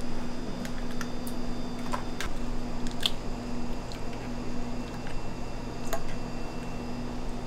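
Eggs being cracked and separated by gloved hands: scattered small clicks and taps of eggshell, the strongest about three seconds in, over a steady low hum.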